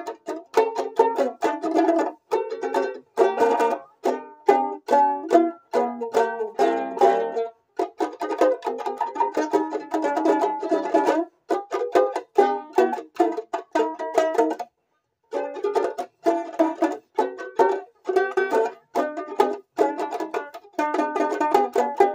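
Banjolele (banjo ukulele) strummed solo, a quick rhythmic run of chord strokes with a bright, ringing, banjo-like twang. The playing breaks off briefly partway through, picks up again and stops at the end.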